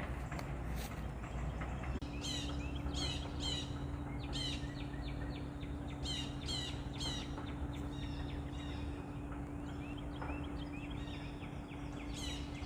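Bird calls: quick runs of repeated high chirping notes, each note sweeping downward, heard in several bursts. Under them runs a steady outdoor background noise, with a steady low hum that comes in about two seconds in.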